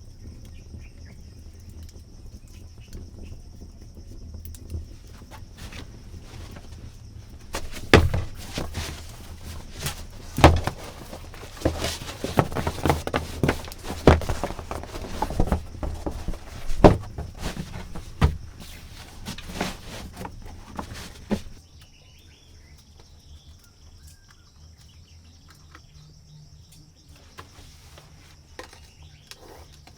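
A steady high insect trill, broken about eight seconds in by a run of sharp knocks and thuds with rustling that lasts about fourteen seconds and then stops; the trill comes back near the end.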